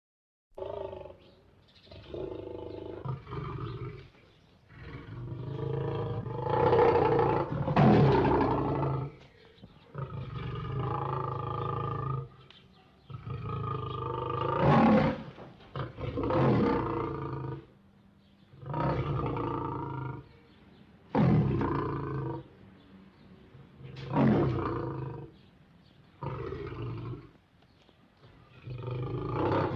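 A lion roaring and growling over and over, one call every two to three seconds, some calls much louder than the rest.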